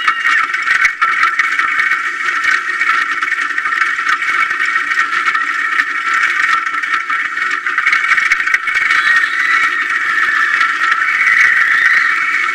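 Roller coaster train running along its track, heard from a camera mounted on the car: a continuous loud rattling and scraping of the train.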